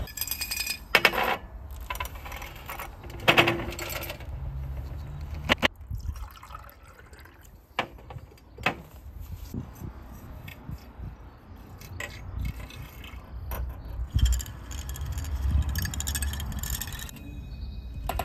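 Lab glassware clinking and liquid being poured between flasks, with several sharp glassy clinks.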